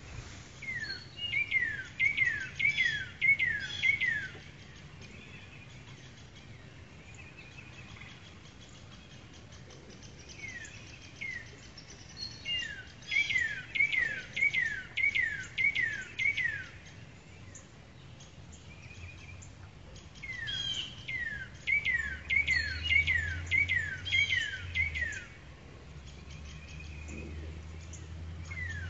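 A songbird singing bouts of clear, falling whistled notes, several in quick succession, with pauses of several seconds between bouts, over a faint low steady hum.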